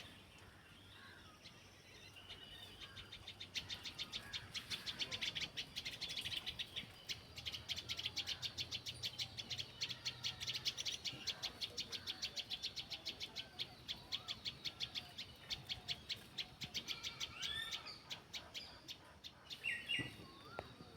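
Birds calling outdoors: a fast, even run of high chirps, several a second, builds up a few seconds in and fades away near the end, with a few other short bird calls around it.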